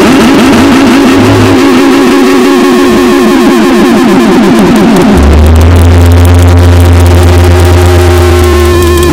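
Harsh noise music: loud, heavily distorted electronic noise with fast warbling, wobbling tones. About five seconds in, a deep steady low drone comes in underneath.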